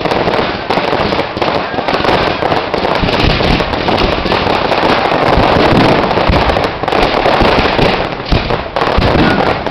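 Fireworks display: a dense, unbroken barrage of aerial bursts and crackling stars, loud bang after bang with no pause.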